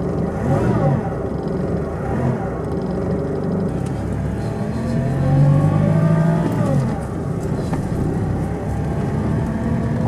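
Toyota Hilux 5L four-cylinder diesel engine heard from inside the cab while driving. Its pitch climbs as it pulls, then drops away about seven seconds in.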